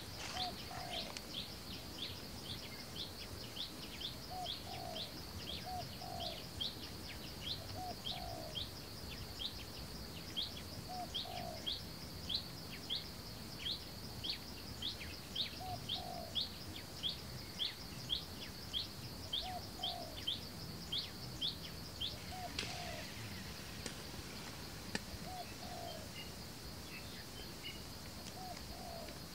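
Birds calling: one repeats a short, high, falling chirp about twice a second, stopping about three-quarters of the way through, while a lower two-note call comes every few seconds, over a steady high hiss.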